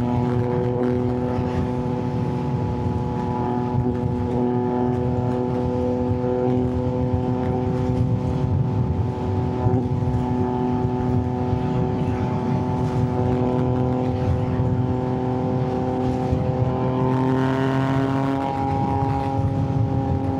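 Yamaha MT-09's inline three-cylinder engine running at a steady road speed under way, with a slight rise in pitch near the end.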